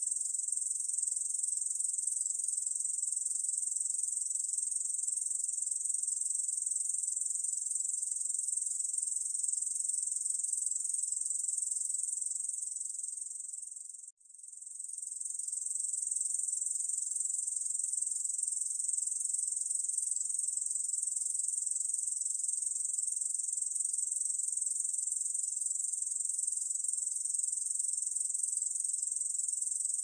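Ussurian bush cricket (Tettigonia ussuriana) katydid stridulating: a continuous high-pitched buzzing trill. It fades away briefly about halfway through, then fades back in.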